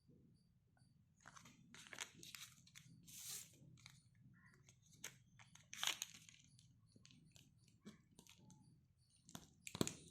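Earphone packaging being handled and opened: irregular crinkling, rustling and tearing with scattered clicks. There are sharper snaps about six seconds in and near the end.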